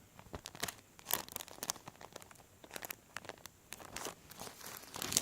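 Decal sticker sheets crinkling and rustling as they are handled, in a string of irregular soft crackles.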